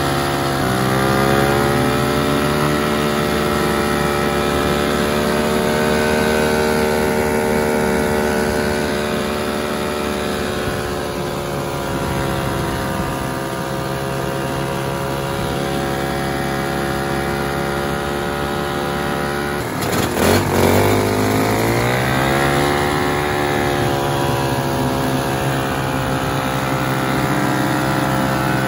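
Vintage snowmobile's two-stroke engine running at steady speed while under way. About 20 seconds in the revs drop briefly, with a short burst of noise, then climb back up as the throttle opens again.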